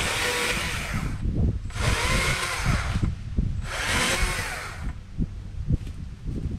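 STIHL MSA 160C battery-powered chainsaw run in three short bursts of about a second each, the trigger pulled and let go as it cuts into small saplings and brush.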